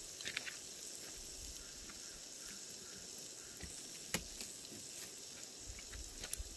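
Small kindling fire crackling, with a few scattered sharp pops, the loudest about four seconds in.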